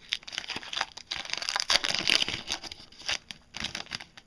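A hockey card pack's wrapper being torn open and crinkled by hand, a dense run of crackling and tearing that eases off just before the end.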